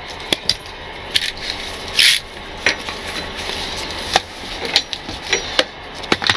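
Nylon strap webbing being pulled loose and handled: rubbing and swishing with scattered light clicks, the loudest swish about two seconds in.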